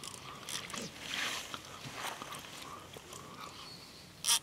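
Faint handling noise of a fishing rod and reel being wound in while playing a small catfish, scattered small clicks with one sharper click near the end.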